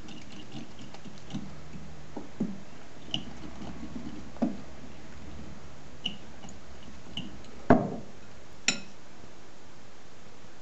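Metal spoon stirring egg into flour in a glass mixing bowl: soft scraping with scattered clinks against the glass, the loudest two about three-quarters of the way through, the last one ringing briefly.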